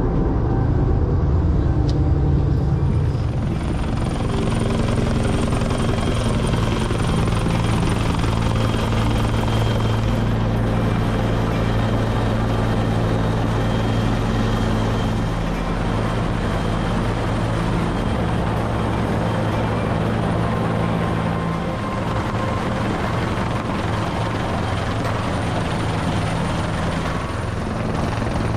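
Rescue helicopter hovering close overhead, its rotor beating in a steady, loud drone with a faint high whine above it.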